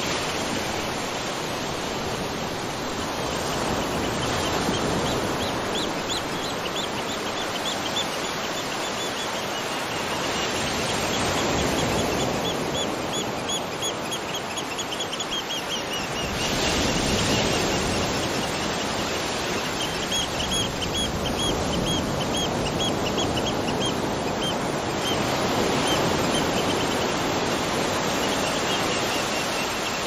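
A steady rush of falling water, from rain and a waterfall. Over it come runs of high chirps, about four a second, lasting a few seconds at a time.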